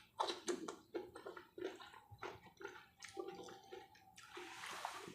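Close-up wet chewing and mouth smacking of someone eating a meal with spicy sambal: a quick run of short moist smacks, two to three a second, then a longer breathy hiss near the end.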